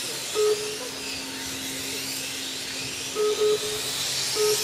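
Whine of RC motorcycles' motors, rising and falling in pitch as the bikes lap the track. Short electronic beeps cut in over it, once about half a second in and four times in the last second and a half, louder than the whine.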